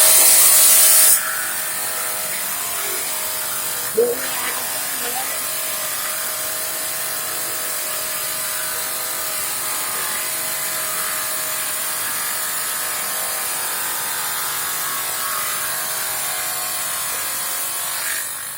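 Table-top tile-cutting saw cutting through a large 80 cm tile. It is loud in the first second, then gives a steady grinding hiss with a constant hum, and stops just before the end.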